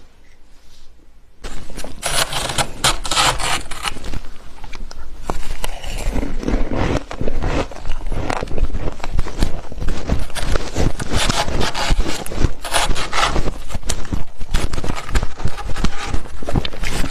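Dense, close-up crunching and crackling of deep-freezer frost. It starts about a second and a half in after a quiet start and keeps going as a rapid, irregular run of crunches.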